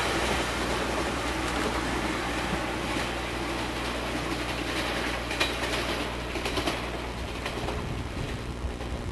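Electric multiple-unit train in orange-and-green livery running away along the track, its sound slowly fading. A few sharp clicks of wheels over rail joints come around the middle. The sound cuts off abruptly at the end.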